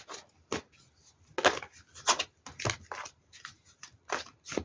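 Tarot cards being shuffled and laid down on a table: a series of short, irregular slaps and rustles.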